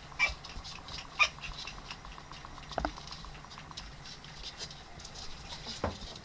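Ryukyu dog puppies squeaking and yelping: short high cries near the start, the loudest about a second in, and two falling whimpers later, over a light patter of claws tapping on a wooden floor.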